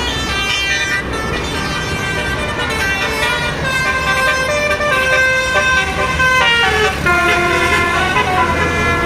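Bus Basuri telolet horn, a multi-tone musical air horn, playing a melody of held notes that step from pitch to pitch, several tones sounding at once, over the low rumble of the bus engine and toll-road traffic.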